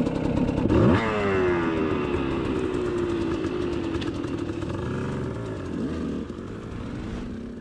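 200 cc two-stroke enduro dirt bike engine revved sharply about a second in, its pitch then falling away over the next few seconds as the throttle comes off. The engine keeps running, growing fainter near the end.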